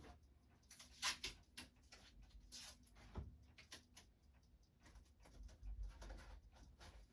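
Near silence in a small room, with a few faint rustles and small clicks, the loudest about a second in.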